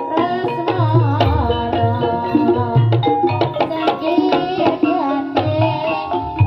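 Javanese gamelan music accompanying an ebeg dance: metallophone notes over hand-played kendang drum strokes, with a singing voice.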